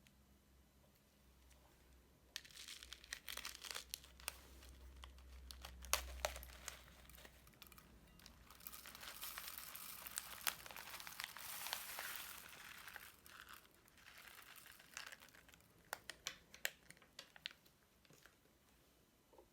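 Crunchy slime being squeezed and worked by hand, crinkling and crackling with many sharp little pops. It starts about two seconds in and thins to scattered crackles near the end.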